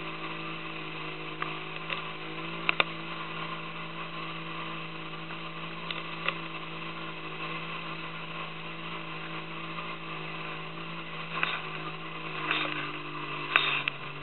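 Small boat's motor running steadily under way, a constant even hum, with a few short sharp knocks, most of them near the end.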